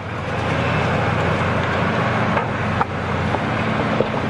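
Heavy diesel forestry machine running steadily, with a few faint knocks.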